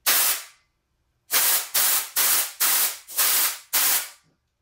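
Compressed-air blow gun pressed into the end of an engine push rod, firing short blasts of air through it to clear out liquid and debris. One blast comes right at the start, then six quick blasts about two a second; each hiss starts sharply and fades.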